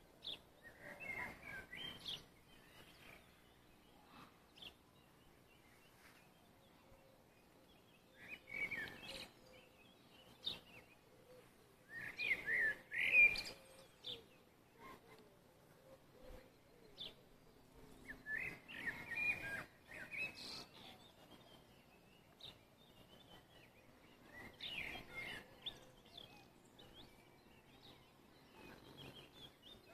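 Several wild songbirds singing in short bouts every few seconds, over a faint rush of wind.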